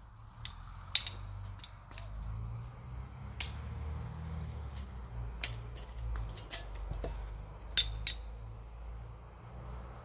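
Stainless-steel lever berry press being handled: about a dozen sharp metallic clicks and clinks at irregular intervals, two close together near the end, over a low rumble.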